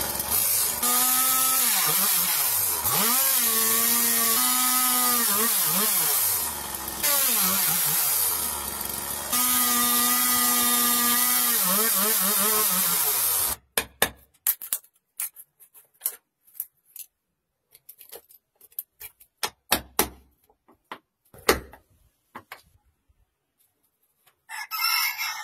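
Electric woodworking power tool running for about thirteen seconds, its motor pitch sagging and recovering under load, then stopping. Scattered sharp knocks and taps of wood being handled follow.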